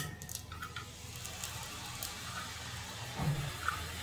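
Hot oil sizzling steadily as fresh strands of gram-flour omapodi dough are pressed into it and start to deep-fry. The sizzle goes on while the dough's moisture cooks off, and when it dies down the batch is ready.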